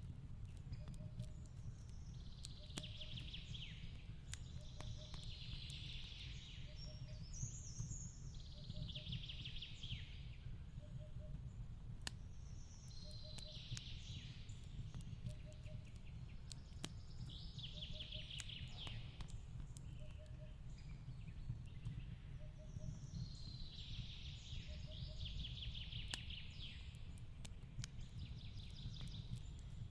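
Wood fire crackling, with sharp pops scattered over a steady low rumble, under songbirds singing short repeated phrases every few seconds. A soft low note pulses about once a second.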